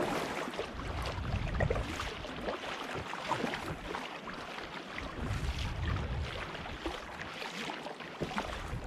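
Sea water splashing and lapping around a kayak, with irregular small splashes and gusts of wind buffeting the microphone.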